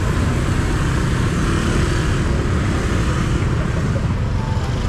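Steady street noise with motor traffic running past.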